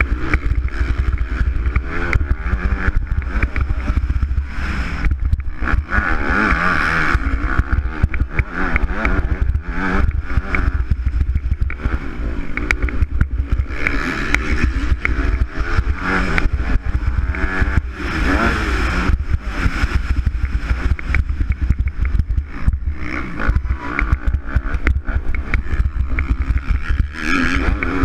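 Motocross bike engine revving up and down as it is ridden hard round a dirt track, heard from a helmet-mounted camera with heavy wind buffeting on the microphone.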